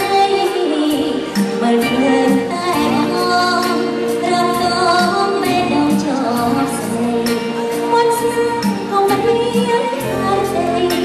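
Woman singing a Khmer song into a handheld microphone, amplified over live backing music with a steady beat.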